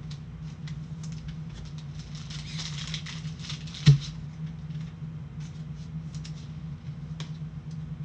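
Trading cards handled with gloved hands: light clicks and a soft sliding rustle, with one sharp knock about four seconds in.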